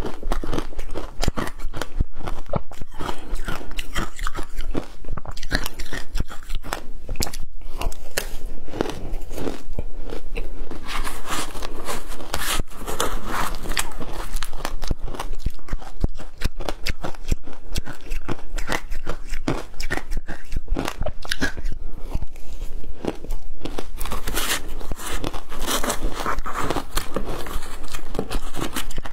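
Crunching and chewing of mouthfuls of shaved ice, a steady stream of crackly crunches, mixed with a metal spoon scraping and stirring through the ice in a plastic bowl.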